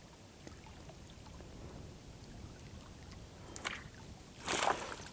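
A small mountain stream flowing faintly, with a short, louder rush of noise about four and a half seconds in.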